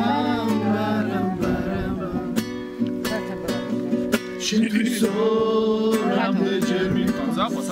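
Acoustic guitar strummed in a regular rhythm, accompanying singing.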